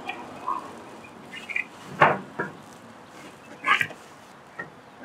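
Styrofoam packing blocks squeaking and scraping as they are worked off a boxed welder: a few short squeaks, the loudest about two seconds in.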